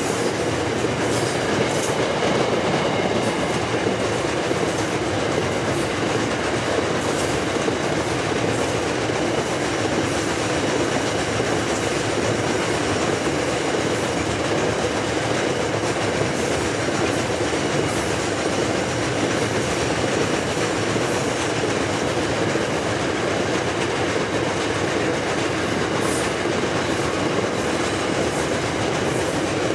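Loaded iron ore hopper wagons rolling past close by. The steel wheels keep up a steady rumble on the rail, with irregular clicks as the wheels pass over the rail joints.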